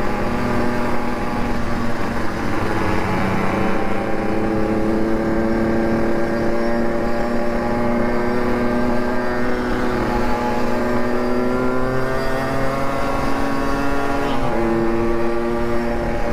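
Motorcycle engine pulling steadily under way, its pitch slowly rising, then dropping sharply at a gear change about 14 seconds in, with a low rumble of wind noise underneath.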